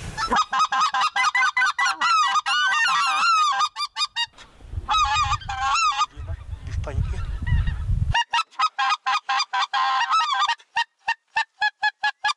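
Goose calling on a blown goose call imitating white-fronted geese: fast, high yelping honks in quick runs, breaking into a string of short separate notes about four a second near the end. A gust of wind rumbles on the microphone about halfway through.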